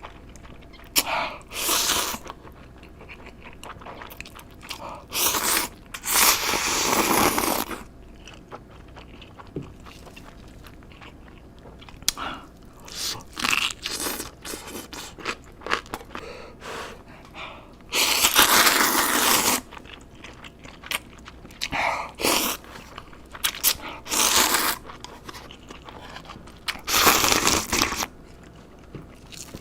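A person eating crunchy food close to the microphone: loud crackly crunching bites in irregular bursts, the longest a second or more, with quieter chewing between them.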